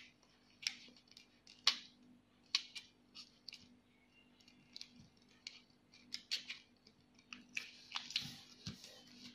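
Origami paper being folded and creased by hand on a wooden table: a string of short, crisp crackles and snaps of the paper, with a brief rustle a little before the end and one soft low thump near the end.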